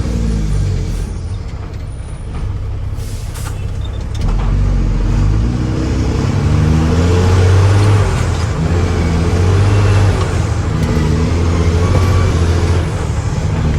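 Mack dump truck's diesel engine running loud, its revs rising and falling again and again.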